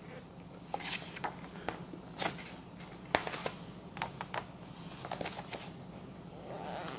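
Pages of a large book being turned and handled: paper rustling and flipping in a series of short, sharp sounds.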